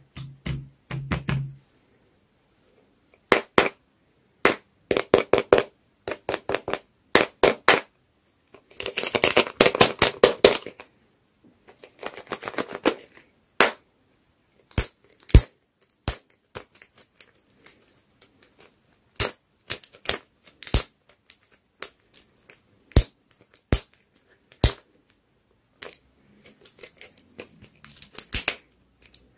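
Fingers tapping and clicking on hard plastic lollipop capsules. The sound comes as clusters of quick sharp clicks with a dense rattling run about a third of the way in, then single sharp clicks a second or two apart. Near the end there are a few soft crackles of the tape band being picked at.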